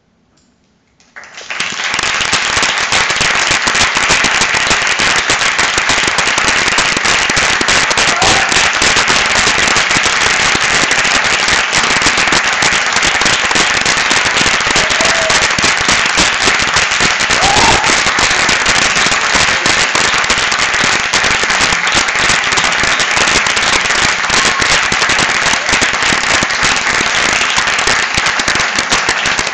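Theatre audience applauding, breaking out suddenly about a second in after near silence and going on steadily as a dense, loud clapping.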